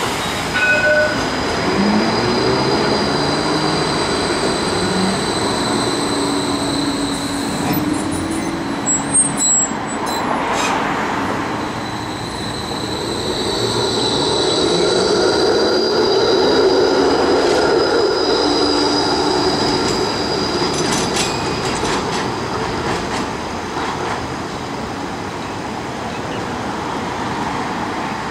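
Melbourne trams moving over curved track: steel wheels squeal on the rails in long, high, held tones, once in the first third and again, louder and longer, in the middle. Under the squeal the electric traction motors whine, rising and falling in pitch. A few sharp knocks come about nine to ten seconds in.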